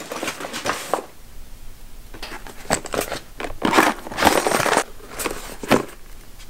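A Plano KVD soft tackle bag and the clear plastic tackle trays inside it being handled, giving irregular bursts of rustling and scraping with a few sharp plastic clicks.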